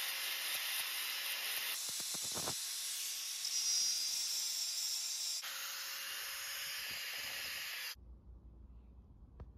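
Angle grinder grinding the paint off painted steel bed-rail angle iron down to bare metal for welding, a loud, steady grinding hiss. Its pitch shifts a couple of times, and it cuts off abruptly about eight seconds in.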